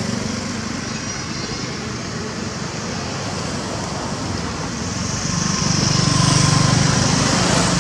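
Road traffic running steadily, with a vehicle passing louder from about five seconds in.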